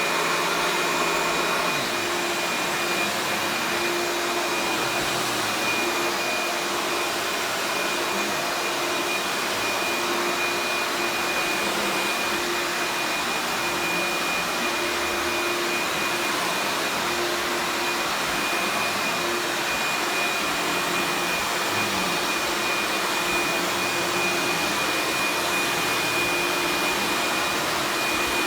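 Eureka The Boss Plus vacuum cleaner's 12-amp motor running steadily at full speed: a constant high whine over a lower hum and rushing air.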